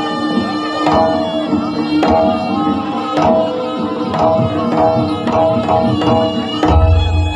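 Live jaranan gamelan music: hand drums strike about once a second over sustained ringing metallophone tones, with a deep low boom near the end.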